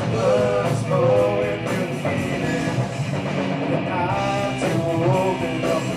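Live rock band playing at full volume: two electric guitars, bass guitar and drum kit, with a sung lead vocal line.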